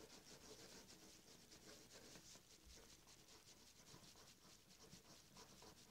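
Faint scratching of a pen colouring on paper, in many quick strokes.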